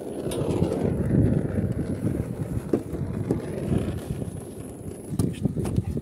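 Wind buffeting the microphone: an uneven low rumble, with a few light clicks of handling.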